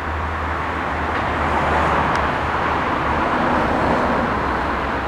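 Road traffic passing on a busy main road, a vehicle's tyre and engine noise swelling up over the first couple of seconds and staying loud, over a steady low hum.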